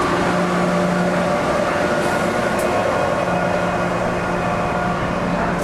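Amtrak AEM-7 electric locomotive passing close by, a steady hum of several tones over the rumble of its wheels on the rails.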